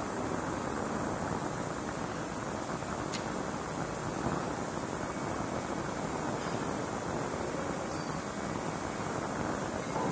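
Crankshaft grinding machine running steadily with a Ford V8 crankshaft turning between its chucks during regrinding: an even, continuous mechanical noise.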